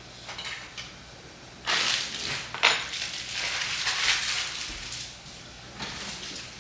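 Kitchen utensils clattering and scraping for a few seconds, with one sharp clink about two and a half seconds in.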